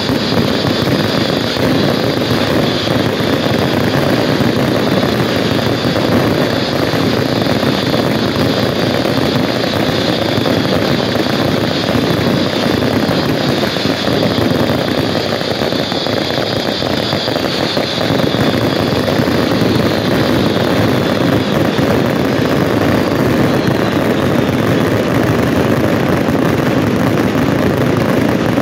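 Dense, unbroken fireworks barrage: many ground fountains and rising whistling pieces firing at once, with shells bursting overhead, blending into one steady loud roar. A high whistling hiss rides over it and fades out a few seconds before the end.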